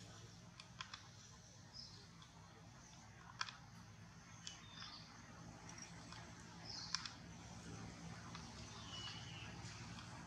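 Faint outdoor background: a few short high chirps and several soft sharp clicks scattered over a low steady hum.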